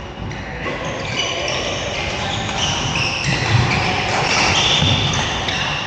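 Badminton doubles play in an indoor hall: shoes squeaking on the court floor and rackets striking the shuttlecock, with echoing room sound and voices in the background.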